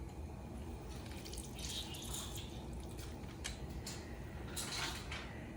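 Lemon juice dripping and trickling from lemon halves pressed in a hand juicer, in two short bursts with a few clicks.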